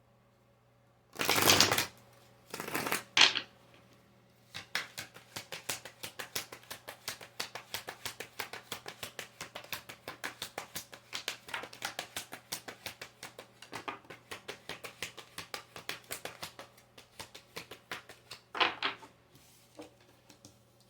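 Tarot cards being shuffled by hand. Two loud swishing riffles come in the first few seconds, then a long run of rapid card clicks, several a second, then one more swish near the end.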